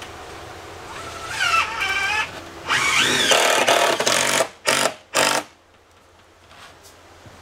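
Power drill running in bursts: first a wavering whine, then a longer, louder run whose pitch rises and falls, then two short trigger pulses about five seconds in.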